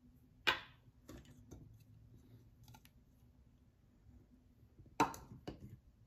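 Handling knocks of hard plastic and metal parts set down and picked up on a tabletop: a sharp knock about half a second in, a few light taps, then another sharp knock near the end followed by a smaller one as the coffee grinder's lid is handled.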